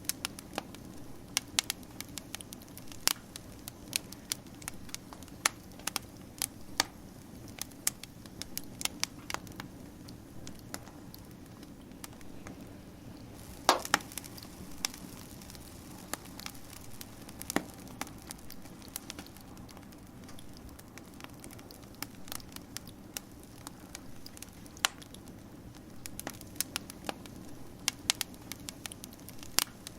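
Wood fire crackling: a steady low hiss with frequent sharp irregular pops and snaps, a cluster of louder pops about halfway through.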